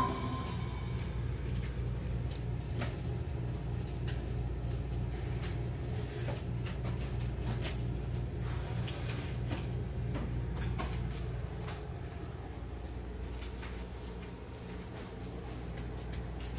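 Steady low hum with a faint pulsing in the bass, with scattered faint clicks and taps.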